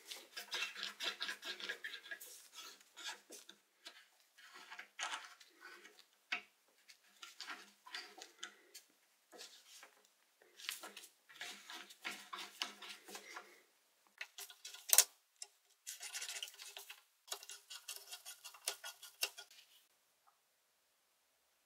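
Short, irregular scrubbing and scraping strokes on a rusty metal wrench, with small metallic clicks and one sharper click about fifteen seconds in. It stops a little before the end.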